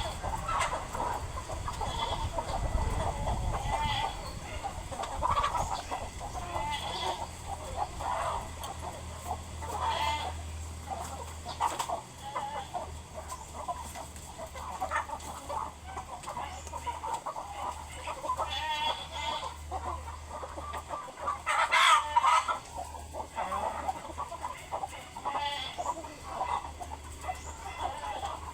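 A flock of chickens clucking on and off, with many short calls and one louder call about twenty-two seconds in.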